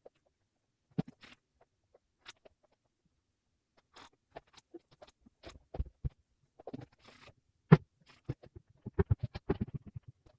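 Household objects being handled during cleaning: scattered clicks and knocks that thicken into a quick run of taps near the end.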